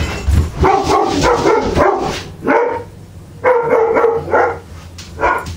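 A dog barking and yipping: about six short, pitched calls with gaps between them, the longest about half a second.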